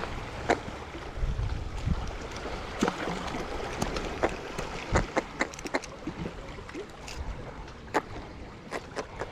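Waterside ambience: a low wind rumble and water lapping, with many irregular sharp clicks and knocks.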